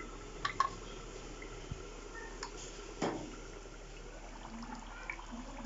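Thick tomato-and-pepper stew being stirred in a pot: soft wet, liquid sounds with a few light clicks, the loudest a single knock about three seconds in.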